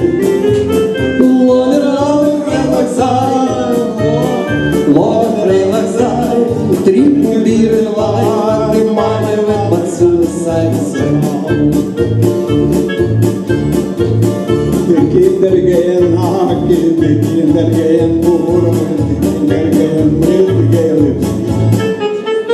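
Electronic keyboard playing an upbeat tune over a steady beat, with a man singing into a microphone over it.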